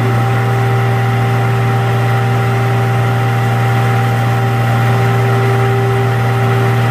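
Diesel engine and hydraulic pump of a 2005 RM Johnson E-Z car crusher running steadily at high speed while raising the crushing lid. A strong, steady hum with a higher whine above it.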